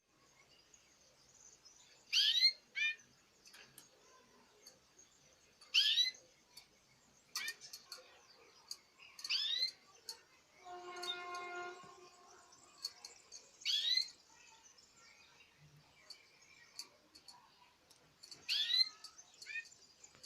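Pet birds calling: loud, short, rising whistled calls every few seconds, with faint chirping between them and one longer, steady-pitched call about eleven seconds in.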